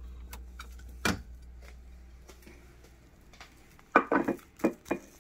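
A plastic tray of cling-wrapped roll sandwiches being handled: a sharp knock about a second in as it comes off the refrigerator shelf, small clicks, then a burst of clattering and rustling near the end as it is set down on a table.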